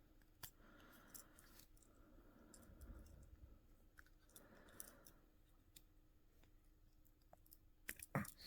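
Near silence with faint, scattered small clicks and light handling noise, a few sharper clicks about eight seconds in.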